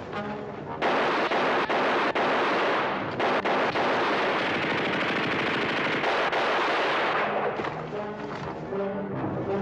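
Heavy machine-gun fire mixed with rifle shots, a dense, sustained barrage that starts about a second in. Dramatic orchestral music comes up over it near the end.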